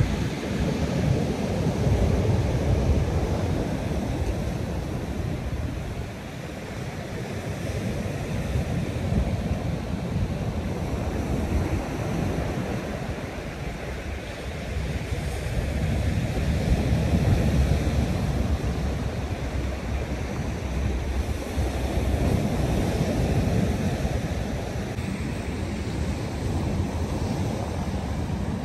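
Heavy surf breaking on a sandy beach, the wash rising and falling every several seconds, with wind buffeting the microphone.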